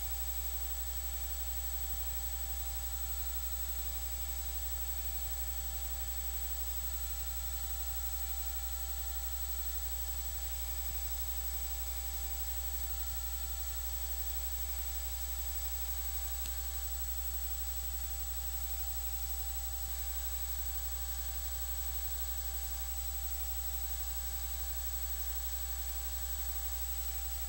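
Steady electrical hum and hiss with a thin high whine, unchanging throughout, with no sound from the arena itself.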